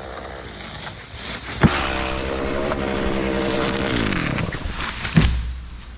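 Stihl two-stroke chainsaw revving up, held at high speed, then let off so the engine winds down toward idle. Two sharp knocks come about two seconds in and near the end.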